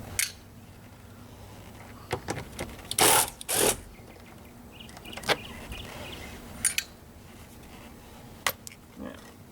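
Hand tools and plastic door-trim parts being handled: scattered clicks and knocks, with two louder rustling or scraping bursts about three seconds in.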